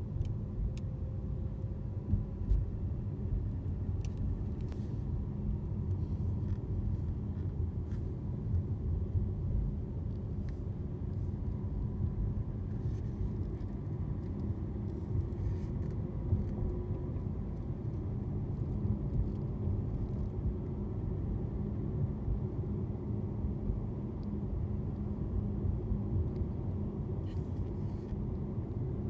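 Steady low road and tyre rumble inside a 2017 Jaguar XJR Sport's cabin while driving, with a faint steady hum under it and a few small clicks from bumps. The hum is the unexplained humming the owner hears at all speeds above about 18 mph, whose pitch shifts with the road surface.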